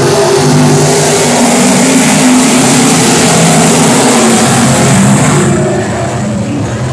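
Dirt-track modified race cars racing past at full throttle, a loud mix of several engines revving, easing off somewhat about five and a half seconds in as they move away.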